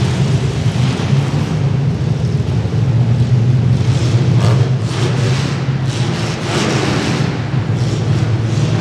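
Compact demolition derby cars with their engines running hard, and several sharp crashes of metal on metal as they hit each other, bunched from the middle of the stretch on.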